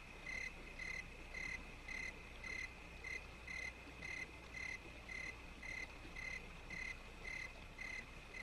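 Insects chirping, likely crickets: a regular high chirp about twice a second over a steady high trill.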